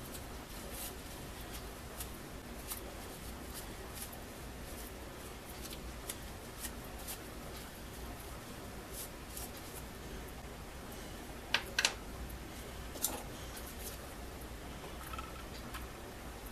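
Small-parts handling at a workbench: needle-nose pliers and a rag worked by gloved hands, giving faint rustling and light scattered clicks over a low hum. A few sharper metallic clicks come close together about two-thirds of the way through.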